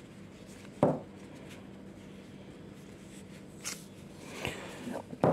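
Faint rubbing of a damp cloth wiping bonded toner off the black rubber roller of a Brother colour laser toner cartridge, with a single thump about a second in.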